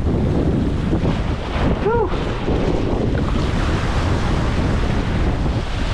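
Surf washing and breaking over shoreline rocks, with heavy wind buffeting the microphone. A brief pitched sound rises and falls about two seconds in.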